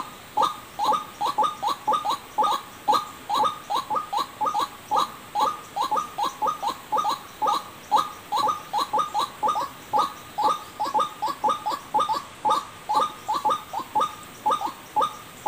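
White-breasted waterhen calls repeated rapidly and without pause, short sharp notes about three a second, as used to lure the birds in.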